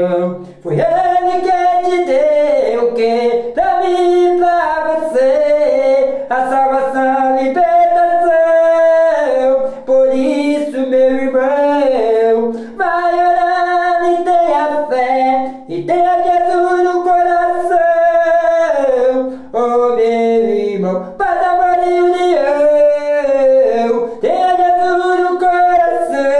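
A man singing unaccompanied in long held notes that bend and slide between pitches, with short breaths between phrases. The voice rings in a small tiled room.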